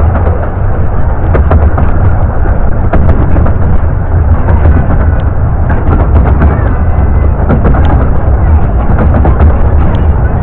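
Loud, steady low rumble of a ride in an open miniature-railway carriage, with buffeting on the microphone and scattered clicks and knocks.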